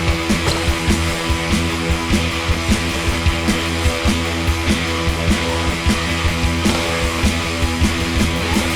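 Punk rock music with distorted guitars and a fast, steady drum beat.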